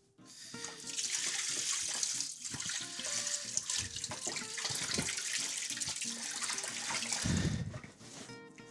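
Kitchen tap running into a sink with a steady hiss of water, starting about half a second in and shut off near the end.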